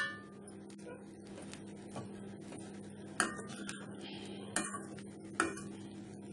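Perforated steel spatula clinking and scraping against a stainless steel pan as fried rice is stirred. There is a sharp ringing clink at the start and three more about three, four and a half and five and a half seconds in, over a steady low hum.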